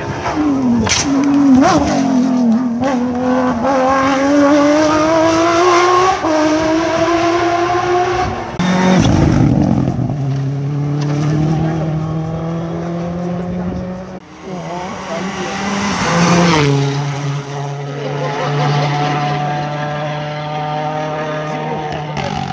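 Rally cars at full throttle on a tarmac stage: an engine note climbs through the gears with shifts, a rush of noise as a car goes past about nine seconds in, and after a cut another car's engine holds a steadier note.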